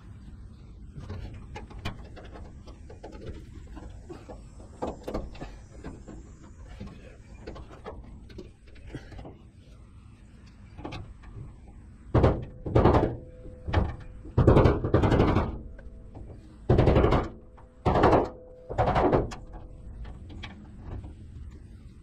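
A hammer striking a punch to drive the hood seal's ribbed push-in retainers up into a 1987 Chevrolet pickup's hood. About seven loud, separate blows come in the second half, with quieter handling sounds before them.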